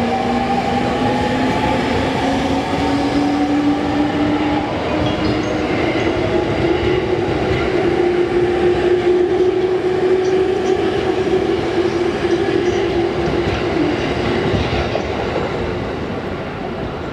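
JR East 209 series 500 electric commuter train accelerating away from a station: the traction motor whine rises slowly in pitch over the first few seconds, then holds steady over the rumble of the passing cars. It fades near the end as the last car goes by.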